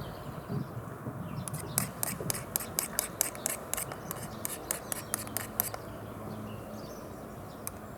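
Ferro-rod fire starter being struck again and again: a quick run of sharp scraping clicks, about four or five a second, starting about a second and a half in and stopping near six seconds.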